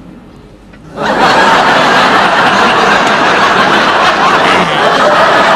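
A laugh track of many people laughing comes in suddenly about a second in and continues loudly.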